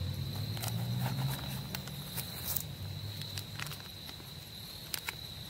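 Soft clicks and rustles of hands opening a pouch and taking out paper-wrapped matches, over a low wind rumble and a steady high-pitched insect call.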